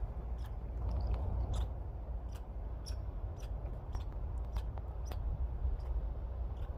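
Red squirrel hiccuping: a run of small, sharp clicks, about two or three a second at uneven spacing, over a steady low rumble.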